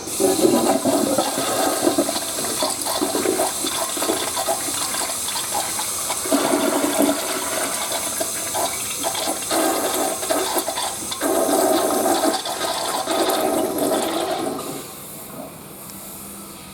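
Western-style toilet flushing: a loud rush of water starts at once, runs for about fourteen seconds, then dies down to a quieter flow of water near the end.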